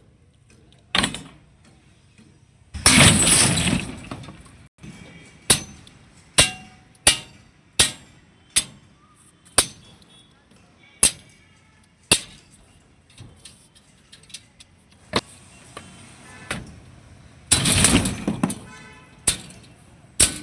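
Construction impacts: a string of sharp single strikes at irregular intervals, about one every second or so, with two longer crashing bursts, one about three seconds in and one near the end.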